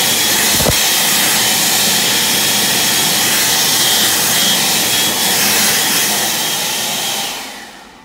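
ASI 0133 recessed stainless-steel hand dryer blowing at full power, a loud steady rush of air with a faint high whine. The air shuts off and winds down near the end once the hands are taken away.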